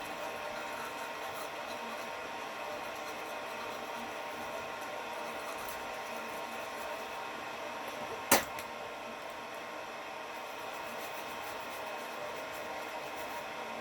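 Steady background hum with several fixed tones, broken once by a single sharp click a little over eight seconds in.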